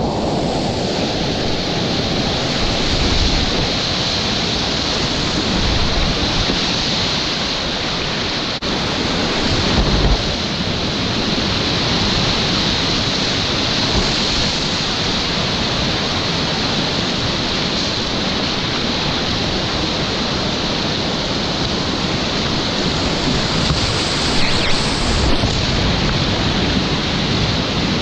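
Whitewater rapids rushing steadily around a kayak, heard close up as a dense hiss of churning water, with a few low thumps about three, five, ten and twenty-five seconds in.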